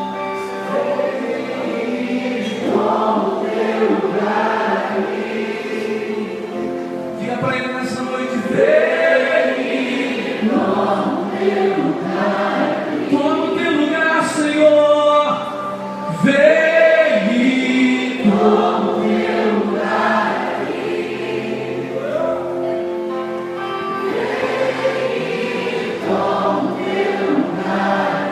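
Church worship music: a group of voices singing with instrumental accompaniment, over sustained held chords.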